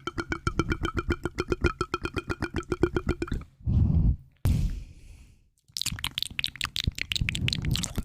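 Close-miked ASMR trigger: a fast, even run of ringing clicks, about ten a second, stops about three and a half seconds in. A short low thud and a soft hiss follow, then a denser, brighter run of clicks near the end.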